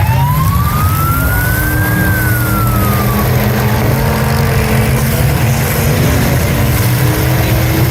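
A siren wails, its pitch rising for about two seconds, then falling and fading out about three seconds in. Under it, the engines of demolition derby cars keep up a loud, steady rumble.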